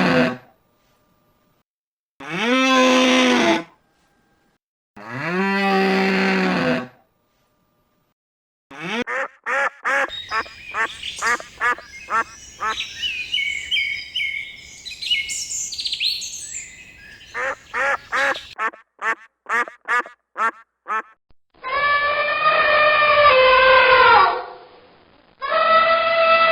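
Cow mooing twice, then a long run of rapid duck quacks mixed with higher chirps. Near the end come two longer, drawn-out calls from another animal, each falling in pitch.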